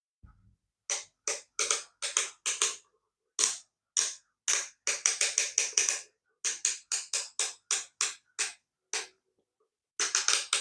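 Rotary range dial of a Circuit Specialists CSI2010 digital multimeter being turned through its positions, its spring-loaded plastic detent teeth giving sharp clicks, singly and in quick runs of two to four.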